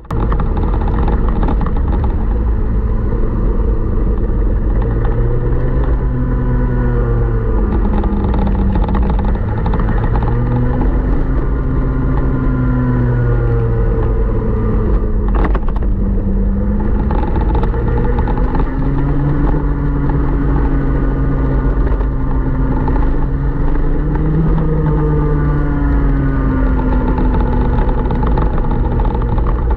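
Onboard sound of a 125cc two-stroke TaG kart engine at racing speed, its pitch climbing and falling again and again as it revs out and drops off through the corners, over a constant low rumble.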